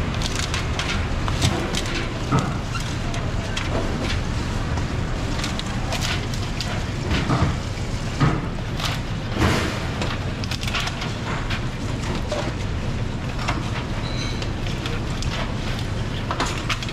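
Food-stall clatter over a steady low hum of background noise: scattered clicks and knocks from handling clear plastic fruit boxes and from knife work cutting guava.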